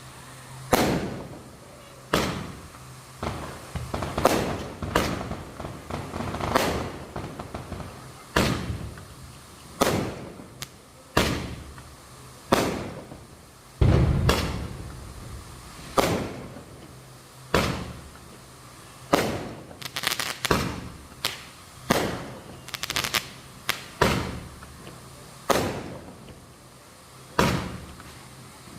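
Firecrackers bursting one after another, a sharp bang every second or two, each followed by a short echoing tail, with a quick run of pops a little past the middle.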